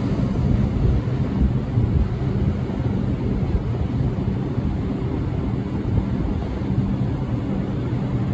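New York City subway train running, a steady low rumble with a faint low hum underneath.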